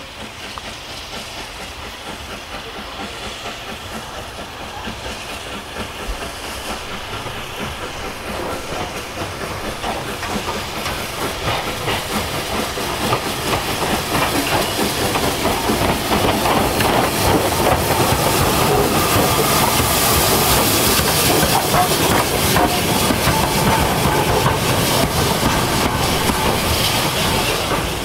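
LSWR S15 4-6-0 steam locomotive No. 506 approaching and passing with its train, chuffing and hissing with wheel clatter. It grows steadily louder over the first half and stays loud until it cuts off near the end.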